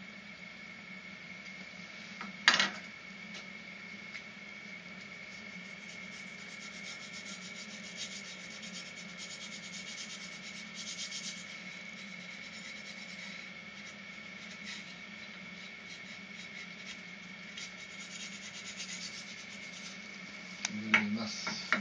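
Faint scraping and rubbing, heard through a television speaker, over a steady high whine and low hum, with one sharp knock about two and a half seconds in and a clatter near the end.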